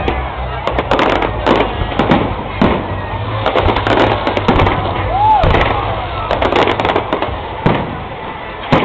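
Fireworks display: aerial shells bursting in a rapid, irregular string of bangs and crackles, with a brief rising-and-falling whistle about halfway through.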